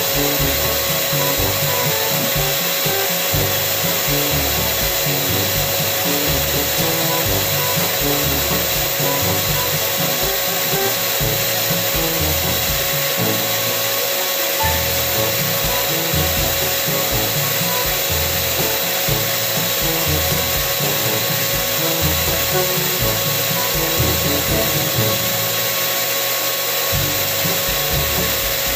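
Electric turbine paint sprayer (Paint Zoom type) running steadily: a constant motor whine over a loud hiss of air rushing through the spray gun.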